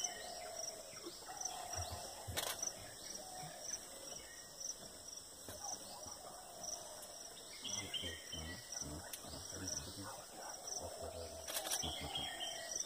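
Forest insects calling: a high chirp pulsing at a steady rate over a constant high hiss, with a few short bird whistles. A couple of sharp clicks cut in, about two seconds in and again near the end.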